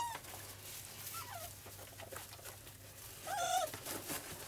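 Young puppies whimpering: three short, high-pitched cries that fall in pitch, the loudest late on, over soft clicking and rustling.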